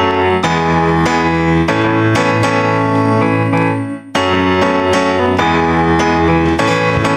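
Electric keyboard playing sustained chords over a low bass line, briefly breaking off about four seconds in before carrying on.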